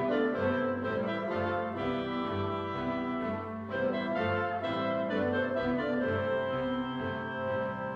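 Orchestral background music, led by brass over strings, with sustained chords changing every second or so.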